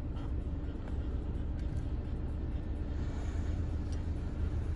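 A car engine working as an SUV drives through deep snow, heard as a steady low rumble.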